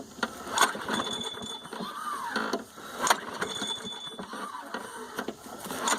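Push mower engine being pull-started and not catching: the recoil starter cord is yanked again and again, about every two and a half seconds, each pull a rising-then-falling whir as the engine turns over, with a sharp clack as the cord snaps back.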